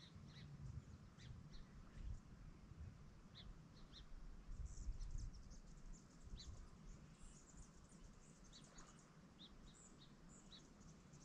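Near silence with faint, scattered bird chirps and a low rumble that swells briefly about halfway through.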